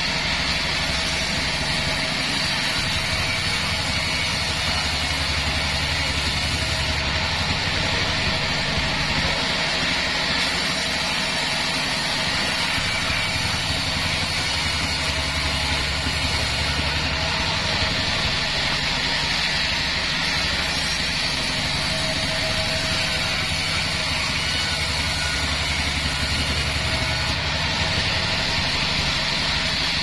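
Bandsaw36 band sawmill running steadily, its blade sawing through a mahogany log. A lower rumble swells in three stretches of several seconds each, about ten seconds apart.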